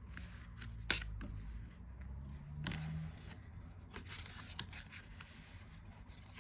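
A deck of oracle cards being shuffled and handled: soft rustling and riffling with a few sharp card snaps, the sharpest about a second in.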